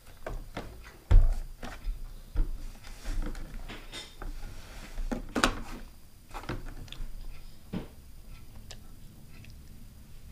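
Irregular knocks and thumps on a wooden table, with rubbing handling noise as a small action camera is grabbed and covered. A heavy thump comes about a second in, and a sharp knock a little past five seconds.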